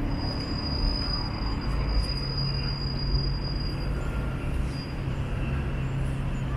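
Street traffic: a large vehicle's low, steady running rumble, with a thin high-pitched whine that holds for about four seconds and then stops.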